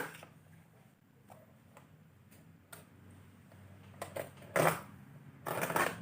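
Keyboard and mouse packaging being handled: a few light clicks and taps, then two louder rustling scrapes in the second half.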